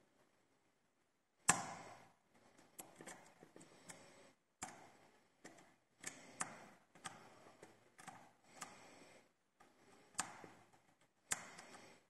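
Lock picking in a Zeiss Ikon SK6 Sperrwelle Extra Code lock cylinder: faint scraping of the pick and tension tool, broken by about a dozen sharp clicks, the loudest about a second and a half in.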